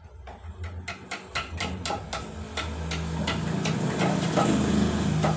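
Small power saw running, with a rapid even ticking of about four to five clicks a second over a motor hum that grows louder about halfway through.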